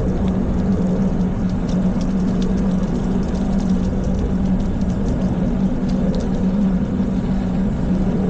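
Steady low engine rumble with a constant droning hum, unchanging throughout.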